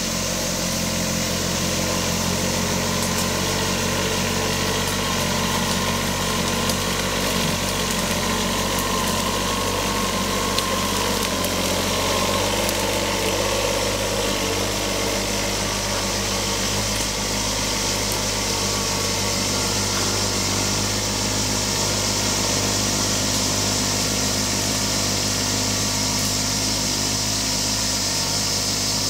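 Compact tractor engine running steadily as it drives past and climbs a hill, under a steady high buzz of crickets and cicadas that grows louder in the second half.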